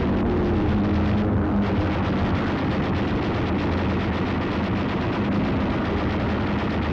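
Newsreel battle sound effects: a continuous din of aircraft engines and rapid machine-gun fire, a dense steady rattle over a low drone.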